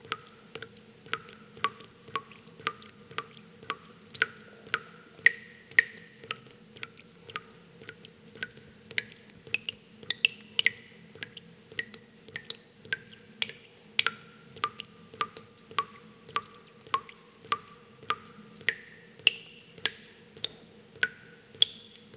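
Water dripping: irregular sharp plinks of single drops, about two a second, each with a brief ringing pitch, over a faint steady low hum.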